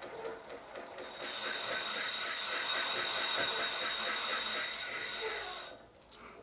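Bobbin winder of a treadle sewing machine spinning as the machine is run slowly, winding thread onto the bobbin: a steady whirring rub with a high whine. It starts about a second in and stops near the end, followed by a few clicks.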